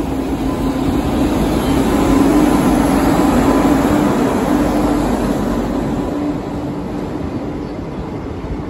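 Indian Railways electric locomotive and passenger coaches passing close by: a steady rumble of wheels on rails with a droning tone, loudest as the locomotive goes by, then easing as the coaches roll past.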